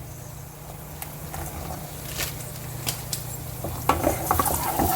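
Cashews frying in hot oil in a pan, sizzling, with a metal spoon clicking and scraping against the pan as they are stirred; the sizzle and stirring grow louder about four seconds in.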